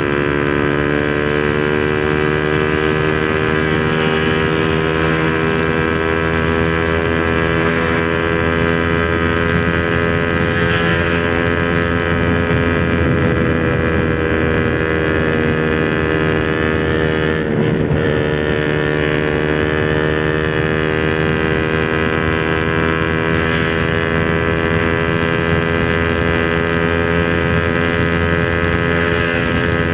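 Honda RS150R's single-cylinder engine running steadily through an open Espada 32mm exhaust, loud, its pitch drifting slowly with a brief dip and rise about eighteen seconds in.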